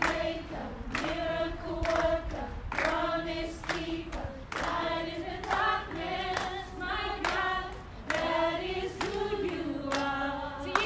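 A group of children singing a worship song together, with sharp hand claps about once a second.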